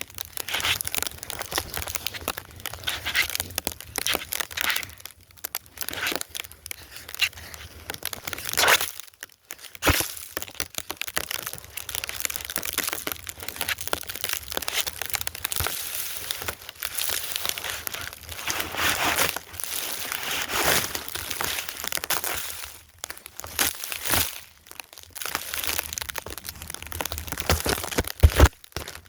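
Snow crunching and scraping as it is piled and packed, in irregular strokes with short pauses.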